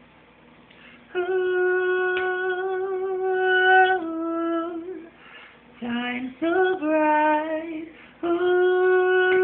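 A solo voice singing unaccompanied in three phrases of long held notes with vibrato: a held note that steps down, a short phrase, then another long held note.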